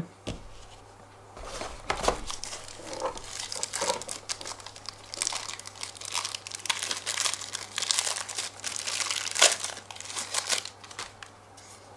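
Thin clear plastic bag crinkling in the hands as a small battery charger is unwrapped from it, in irregular crackles with a few sharper ones about nine and a half seconds in.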